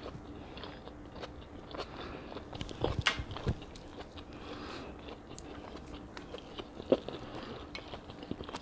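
Close-up mouth sounds of someone chewing a beef tongue taco: soft wet clicks, with a few louder crunchy bites about three seconds in and one sharp click near seven seconds.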